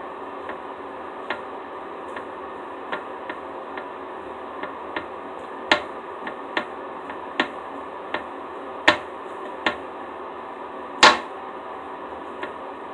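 Sticky slime being handled and pulled, giving irregular sharp pops and clicks, the loudest about eleven seconds in, over a steady hum.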